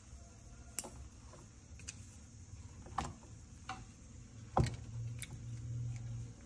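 A handful of sharp taps and clicks, about five, the loudest a little over four and a half seconds in, followed by a low steady rumble that sets in just after it.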